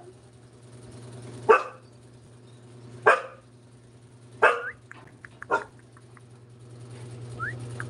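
Siberian husky barking: four short, sharp barks spaced about a second to a second and a half apart.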